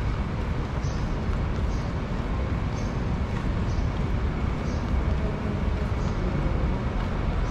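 Steady city street ambience with a low traffic rumble, with faint regular ticks about once a second.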